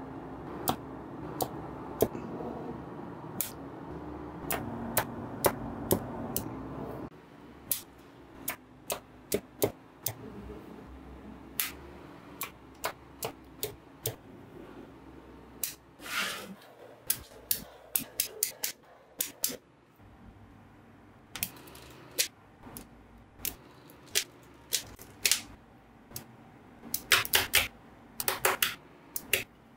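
Small magnetic balls clicking as they snap together one by one, sharp single clicks about a second apart, with quick rattling runs of clicks near the middle and near the end. A steady low hum runs underneath for the first quarter and cuts off suddenly.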